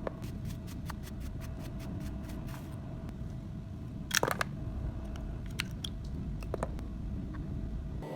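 Hands handling and taking apart a plastic JBL wireless microphone: a string of small clicks and scrapes, with a louder cluster of crackling clicks about four seconds in, over a steady low hum.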